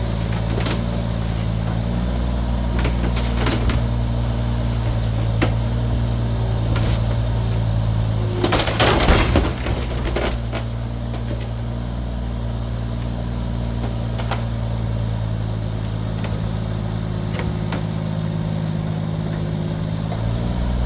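John Deere 26G mini excavator's diesel engine running steadily as the machine works, with scattered knocks and clanks and one loud crash about nine seconds in.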